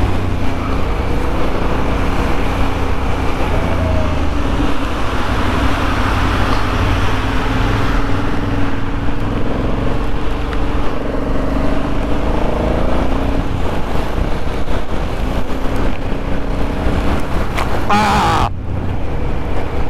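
Motorcycle riding on a rain-soaked road as heard from a helmet camera: engine running with its pitch rising and falling, under steady wind and wet-tyre hiss. Near the end a brief, loud burst of rushing noise.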